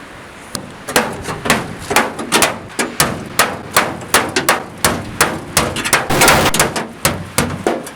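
Repeated hammer blows, about two to three a second, beating out crash damage on the body of a Ranger pickup truck.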